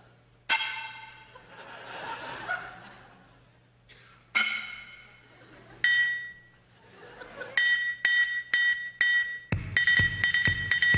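Drum-kit hits sounded in time with a mimed invisible drum kit: three single ringing cymbal-like strikes well apart, then four even strikes about two a second, and near the end a fast full drum beat with bass drum kicks in. Audience laughter can be heard between the early hits.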